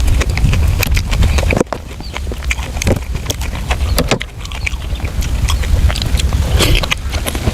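Close-miked chewing of braised pork intestines: wet mouth clicks and smacks coming several a second, over a steady low rumble that cuts out suddenly under two seconds in and builds back.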